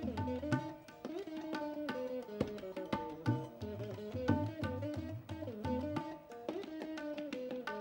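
Tabla and veena playing together: a plucked veena melody with sliding pitch bends between notes, over a steady pattern of tabla strokes.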